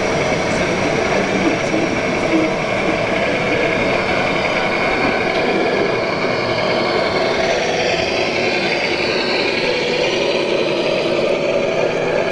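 Simulated diesel truck engine sound from an RC Scania truck's sound module, running steadily at low revs.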